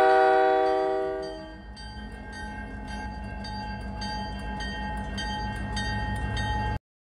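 Diesel freight locomotive's multi-note air horn fading out over the first second and a half. Then the locomotive's bell rings at about three strikes a second over the steady rumble of its engine, stopping abruptly near the end.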